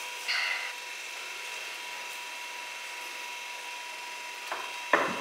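A knife cutting through the seared crust of a porterhouse steak, with a short rasp about half a second in. Two knocks on the wooden cutting board come near the end, the second louder. A faint steady tone hums underneath.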